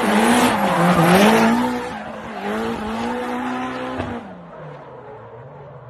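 Drift car engine revving up and down in quick swells while its rear tyres screech loudly through a slide. After about two seconds the screech drops away and the engine carries on more quietly, fading as the car moves off.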